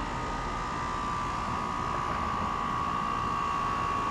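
Outdoor air conditioner condensing unit running: a steady rush of fan noise with a constant high-pitched whine.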